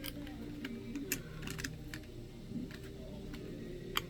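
Sparse, irregular small clicks and taps of a hand tool working a taped-down part loose inside a MacBook Air, over a faint steady low hum.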